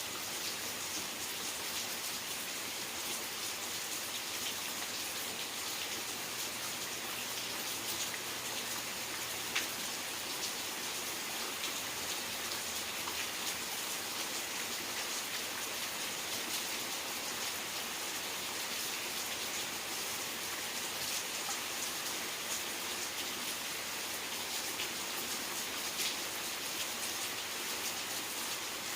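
Steady rain falling, a dense even hiss with many small drops ticking through it and one sharper drop hit about ten seconds in.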